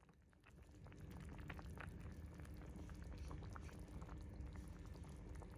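Fish soup boiling in a pan, the broth bubbling with a low rumble and many small pops. It grows louder about half a second in.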